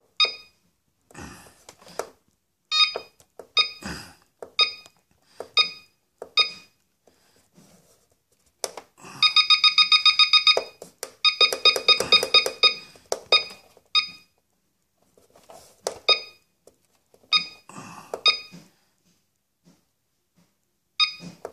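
Key beeps from a CellPro PowerLab 8 battery charger as its buttons are pressed to set up a discharge: single short beeps every half-second to second, with two fast runs of beeps around the middle while the discharge rate is being changed. A few soft clicks of the buttons come between the beeps.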